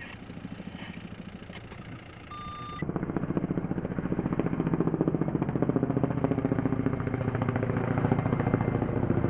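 Firefighting helicopter's rotor chopping with a fast, even beat, which comes in loudly about three seconds in after a quieter vehicle engine rumble.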